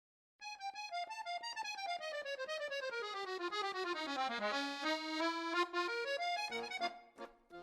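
Accordion playing a quick run of short notes that descends steadily in pitch, holds low, then climbs again near the end.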